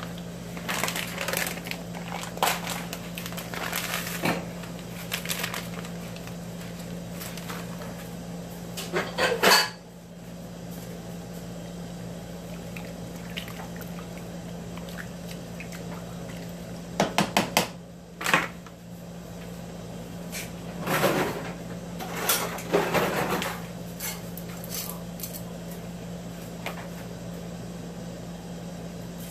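Cooking utensils knocking and scraping against a metal pot as noodles are stirred and turned in water on a gas stove, with scattered sharp clatters over a steady low hum. The loudest clatters come about ten seconds in and again a little past halfway.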